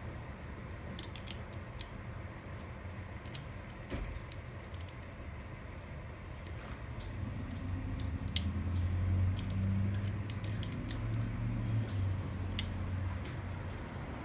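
Small metal mortise-lock parts clicking and tapping, a dozen or so separate light clicks, as the lock is handled and reassembled. A low rumble swells up in the second half and fades near the end.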